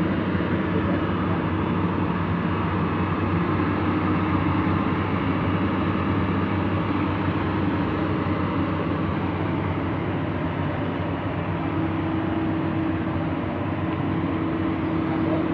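Diesel engine and hydraulics of a JCB JS200SC excavator running under load while lifting pipe. There is a steady low hum with a held whine that fades in the middle and comes back about twelve seconds in.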